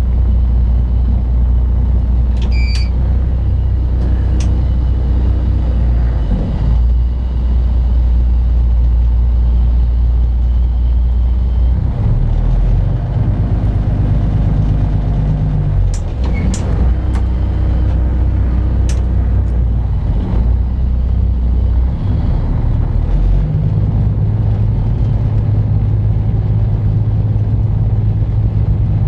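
Spits barge's diesel engine running with a loud, steady low rumble, its engine speed changing several times while the barge is manoeuvred through a lock chamber. A few short clicks stand out over it.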